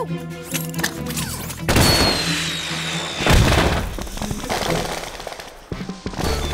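Cartoon sound effects over background music: a loud whoosh with a thin, slightly falling whistle about two seconds in, then a boom a second and a half later that fades out slowly.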